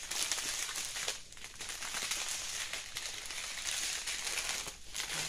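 Crinkling of a clear plastic strip of sealed diamond-painting drill bags being handled and folded. It runs almost throughout, with short lulls about a second in and near the end.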